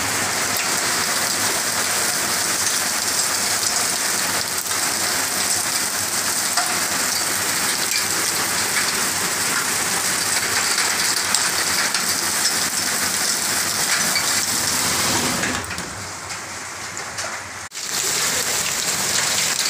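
Heavy rain mixed with hail, pouring and pelting down in a steady downpour. About three quarters of the way in, it drops away for about two seconds, then returns abruptly after a click.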